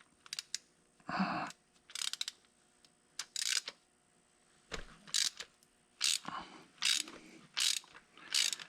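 Ratchet wrench clicking in short bursts, stroke after stroke, backing out threaded spring return pins from a tractor brake housing. The pins are set in thread-locking compound, so they have to be ratcheted out rather than spun off. The strokes come sparsely at first, then regularly about every second.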